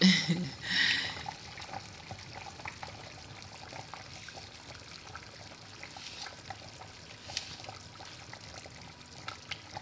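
Pot of soup broth boiling on the stove: a steady bubbling with many small pops.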